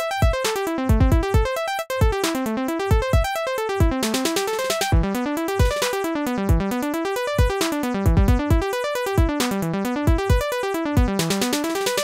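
Logic Pro's Retro Synth playing back an arpeggiated seventh chord from the Arpeggiator, its notes stepping quickly up and then down in a repeating zigzag, over a looping drum beat with low kick thumps.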